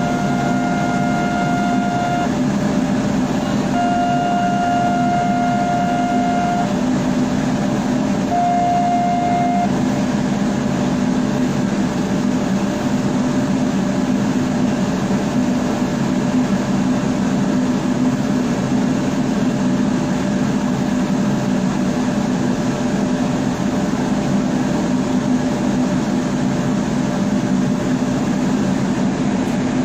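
A horn sounds three blasts, the first two lasting about two to three seconds and the last shorter, over a steady loud rumble that runs throughout.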